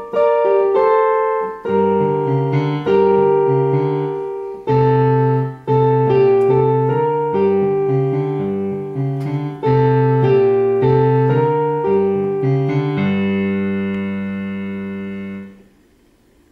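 Electronic keyboard on a piano voice playing a boogie-woogie piece with both hands: bass notes under struck chords. It ends on a long held chord that stops suddenly about two seconds before the end, followed by near silence.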